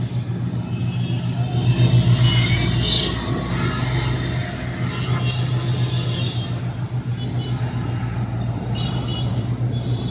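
Roadside traffic noise: a steady engine hum with motor vehicles moving along the road.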